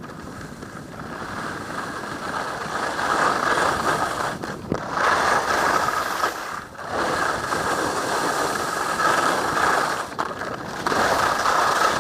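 Skis scraping and sliding over firm, hard-packed snow on a steep run, a steady hiss-scrape that breaks off briefly three times between turns.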